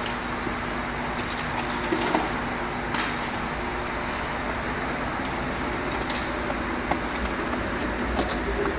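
Steady hum and hiss of a Mini Countryman's cabin, with a scattering of small sharp clicks.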